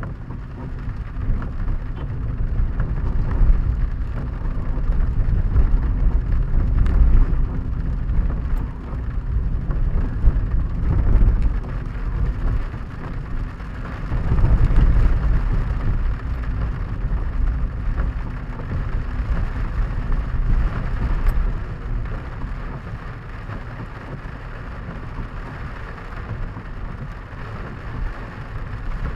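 Rain on a car's roof and windscreen, heard inside the cabin of the moving car, over a low rumble of the car and its tyres on a wet, flooded road that swells several times.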